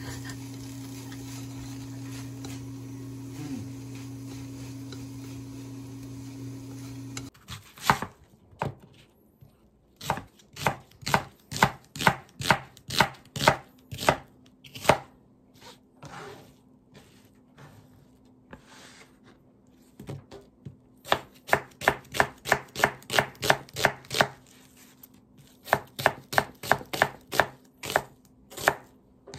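A kitchen knife slicing an onion on a plastic cutting board: runs of quick chopping strokes, about three to four a second, with short pauses between runs. Before the chopping starts, about seven seconds in, a steady hum.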